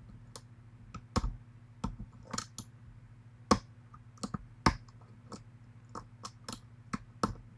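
Pin-tumbler challenge lock being single-pin picked: the pick taps and lifts pins under tension from the tension wrench. This gives irregular sharp metallic clicks, a few of them much louder than the rest.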